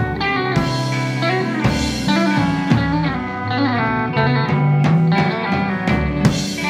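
Live rock band playing an instrumental passage: electric guitars, with notes bending in pitch, over a drum kit keeping a steady beat.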